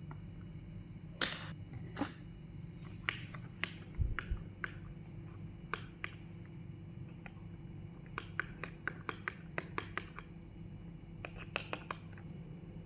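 Sticky slime mixture being stirred and worked by hand as activator is added, giving scattered sharp clicks and pops, with a quick run of small clicks in the second half, over a steady low hum.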